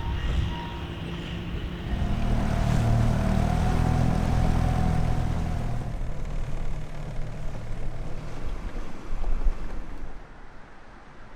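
A boat engine running, growing louder about two seconds in and easing off after about six seconds, with a faint whine above it. The sound falls away sharply near the end.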